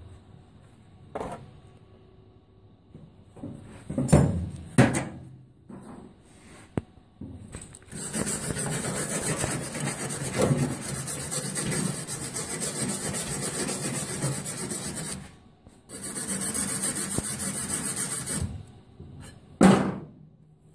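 MIG welding arc crackling steadily as a bead is run along a cracked Model T frame: one run of about seven seconds, a short break, then a second run of about two seconds. A few knocks come before the welding and one loud knock near the end.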